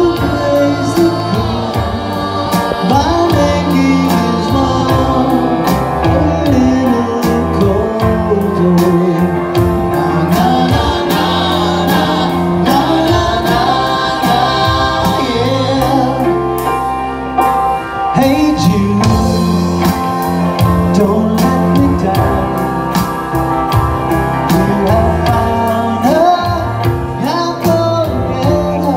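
Live band playing amplified electric guitars with sung vocals over a steady beat.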